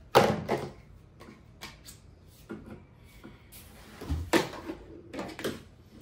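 Knocks and clacks of a Vacmaster 2.5-gallon shop vacuum's plastic hose and nozzle attachments being handled and pushed together, with the vacuum switched off. A sharp clack comes at the start, a few lighter taps follow, and a heavier thump comes about four seconds in.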